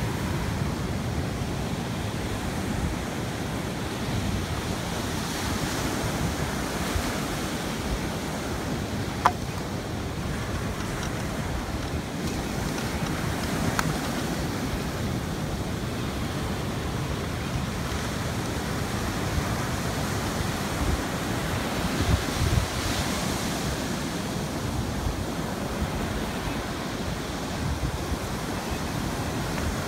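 Wind buffeting the microphone of a sail cart riding along the beach, over the steady wash of surf breaking on the shore. There is a single sharp click about nine seconds in and a few low bumps a little after the middle.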